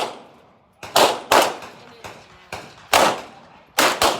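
Gunshots at a shooting range: about eight reports at uneven spacing, some fainter than others, each with an echoing tail.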